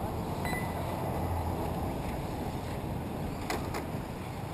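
Wind buffeting the microphone as a steady low rumble, with two sharp clicks in quick succession about three and a half seconds in.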